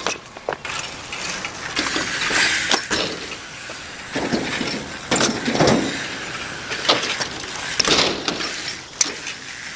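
BMX bike riding on skatepark ramps: tyres rolling on the surface, with several sharp clattering impacts from landings and the bike's metal parts.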